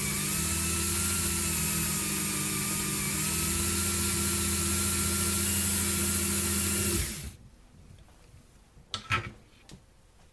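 Dremel rotary tool running steadily for polishing, its high whine wavering slightly in pitch. It stops abruptly about seven seconds in, and a single short knock follows about two seconds later.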